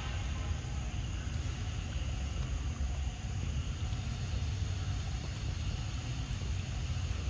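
Steady low rumble with a faint even hiss above it, outdoor background noise with no distinct events.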